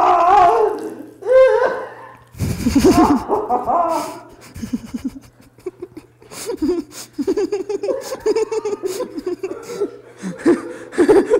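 A man laughing, unable to keep a straight face: short choppy bursts of chuckling that start about two seconds in, the loudest near the start and the rest coming in quick fits. A faint steady low hum runs underneath.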